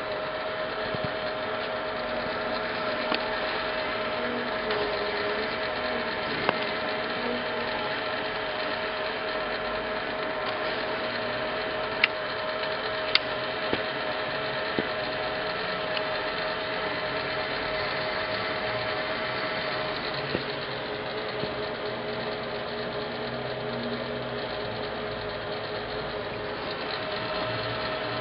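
Hardinge HLVH toolroom lathe running under power: a steady motor hum with a constant whine. Two sharp clicks come about a second apart a little after the middle.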